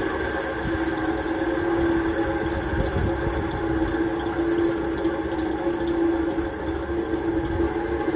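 Baldor direct-drive fan motor in an AAON unit running its fan wheel, very noisy: a steady hum with a strong droning tone and fine irregular ticking on top, the noise of failing motor bearings.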